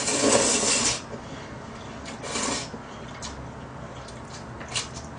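A person slurping noodles from budae jjigae (army stew) out of a bowl: one long, loud slurp in the first second and a shorter one about two seconds in, followed by a few faint mouth or bowl clicks.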